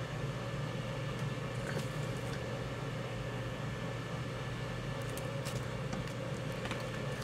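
Steady low background hum, with a few faint ticks as a vinyl LP jacket is handled.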